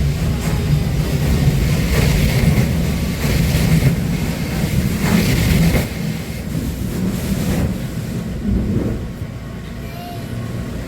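Automatic train washer's sprays and brushes working over the outside of a Hankyu train car, heard from inside the car, with the car's low rumble as it creeps along. The noise eases about six seconds in.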